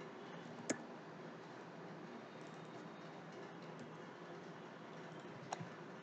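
Two sharp computer mouse clicks about five seconds apart, over a steady background hiss.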